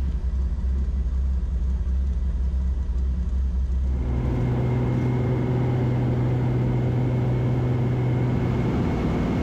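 Floatplane's piston engine and propeller heard from inside the cabin, running steadily at low power, then stepping up to a higher, fuller pitch about four seconds in as the throttle is opened for the takeoff run.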